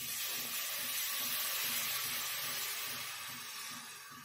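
Water hissing in a hot kadhai of mustard greens as a glass of water is poured in; a steady hiss that fades toward the end.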